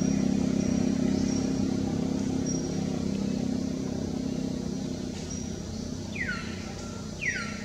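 A low, steady engine hum that slowly fades away. Near the end come two short, high chirps, each falling in pitch, about a second apart.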